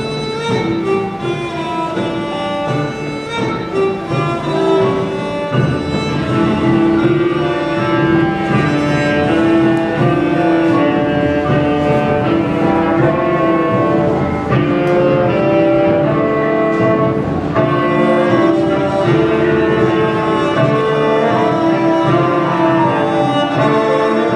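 High school marching band playing a slow passage of its show music, with long sustained chords under a moving melody.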